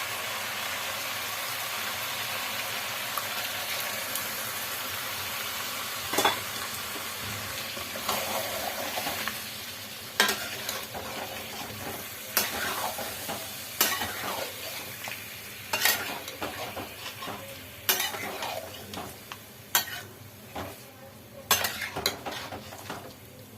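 Chicken curry sizzling in a pan, with a spoon stirring and scraping against the pan about every two seconds from about six seconds in. The sizzle slowly dies down.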